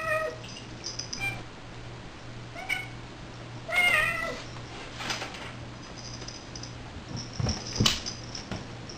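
Domestic cats play-fighting, with several short meows, the longest and wavering about 4 s in. Near the end come two thumps as the cats tumble on the wooden floor.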